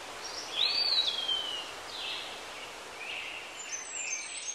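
Steady background hiss with birds chirping: several short chirps and one call that rises and then slides down, about a second in.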